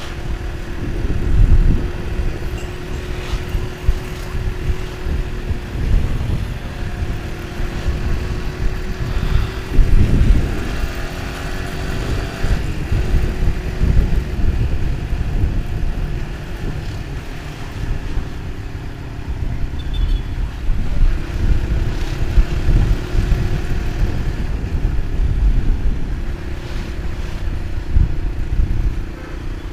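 Motorcycle engine running steadily while riding, with wind buffeting the microphone in irregular gusts.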